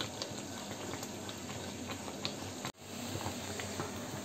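Gram-flour and sugar-syrup batter for Mysore pak bubbling in a pan on the stove as it is stirred: a steady soft crackle with small pops. The sound drops out for an instant about two-thirds through.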